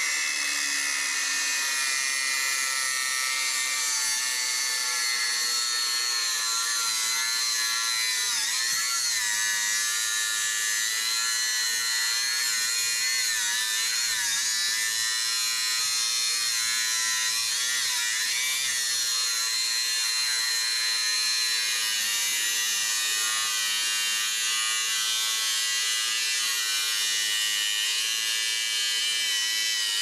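Cordless Denzel angle grinder cutting through a thick-walled metal pipe with an abrasive cut-off disc. It makes a steady high-pitched whine, and the pitch dips several times as the disc bites under load.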